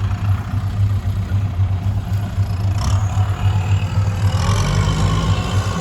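Heavy vehicle engine running with a steady low throb. A wavering higher tone joins it for the last second and a half.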